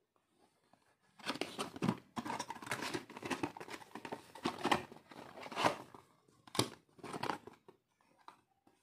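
Thin cardboard box being opened by hand and a round LED downlight slid out of it: dry rustling and scraping of card, with a sharp click about two-thirds of the way through and a few faint taps near the end.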